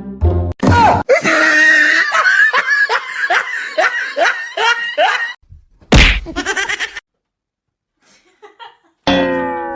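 A person laughing hard in a quick run of bursts, then a loud smack about six seconds in, and a falling tone near the end.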